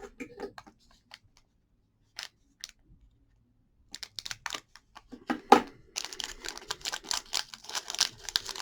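A foil trading card pack being torn open and its wrapper crinkled: a few faint clicks at first, then from about four seconds in a dense run of crackling and tearing.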